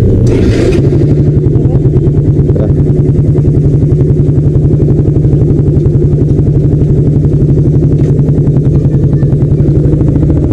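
Motorcycle engine running steadily at idle with a fast, even exhaust pulse, loud and close. Its note steps up slightly about a second in, then holds.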